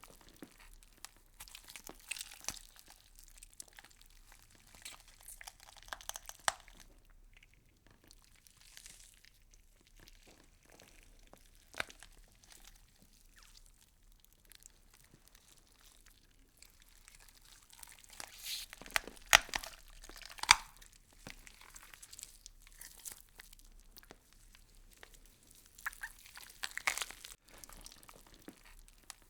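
Close-up crunching and crinkling of leaves being chewed by plant-eating insects: irregular crisp crackles and small tearing sounds. They come in scattered bursts, with a louder, denser run about two-thirds of the way through and another near the end.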